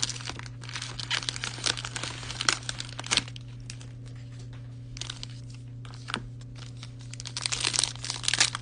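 Cellophane trading-card pack wrappers crinkling and tearing as they are handled and ripped open. The crackling is thick for the first three seconds, thins to a few scattered crackles in the middle, and picks up again near the end.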